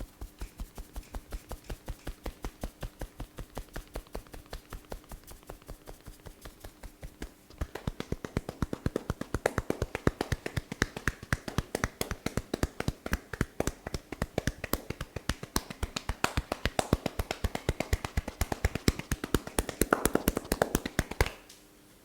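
Hands drumming rapidly and evenly on a body in percussive massage strokes, about four taps a second, then faster and harder from about seven seconds in, stopping abruptly just before the end.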